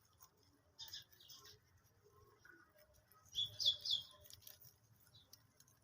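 Small bird chirping in short high notes: two near the one-second mark and a louder run of three about three and a half seconds in.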